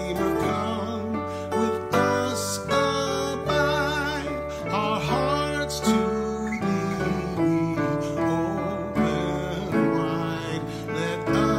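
Worship band playing a hymn: a man singing over strummed acoustic guitar, piano-style keyboard and electric bass guitar.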